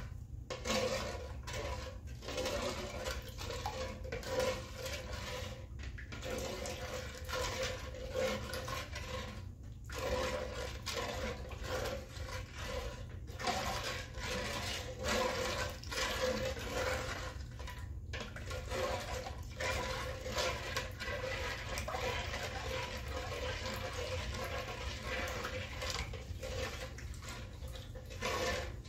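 Water swishing and sloshing in a large metal stock pot as it is stirred continuously with a spoon, dissolving salt for a fiber-reactive dye bath.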